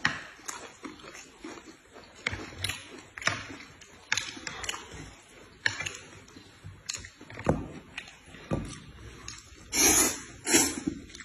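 Eating with chopsticks: scattered short clicks and bites, then two loud slurps of noodles near the end.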